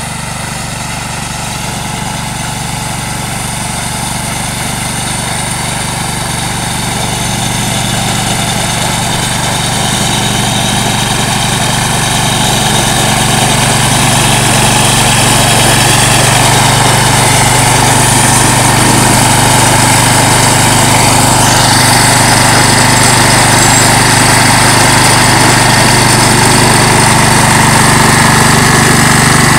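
Wheel Horse garden tractor's engine running steadily while its front-mounted snowblower throws snow. It grows louder over the first half as the tractor comes closer, then holds steady.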